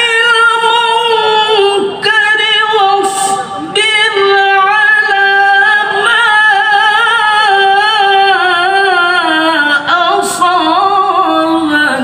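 A male Qur'an reciter (qari) chanting tilawah in a high, loud voice, holding long melismatic notes with a wavering vibrato. Near the end the phrase slides down in pitch and then stops abruptly.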